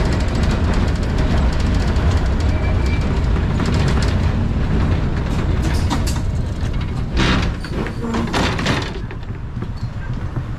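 Low rumble of a moving ATM Class 1500 tram, with a run of clattering about six seconds in, easing off near the end. Background music plays alongside.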